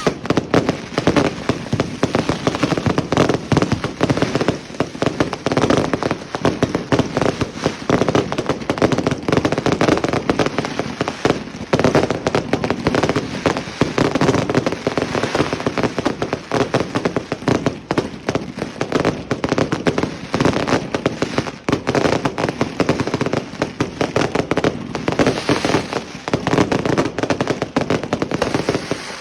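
Fireworks going off in a dense, unbroken barrage of rapid bangs and crackles, the reports overlapping too quickly to count.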